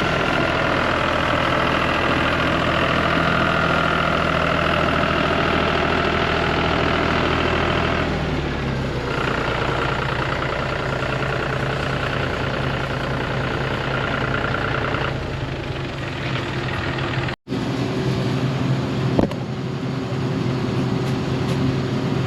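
Diesel engine of farm machinery running steadily, with a higher whine over it. The engine note drops about eight seconds in, and the whine stops partway through. After a brief break a steady lower engine note runs on.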